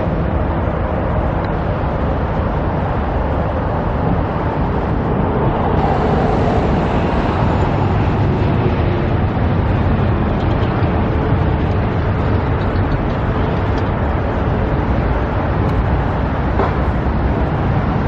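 Steady outdoor rumble of street traffic, with wind buffeting the microphone and making an uneven low-end roar.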